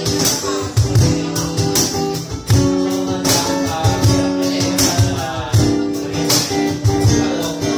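Live acoustic band playing an instrumental passage: acoustic guitar notes with sharp percussion hits keeping a steady beat.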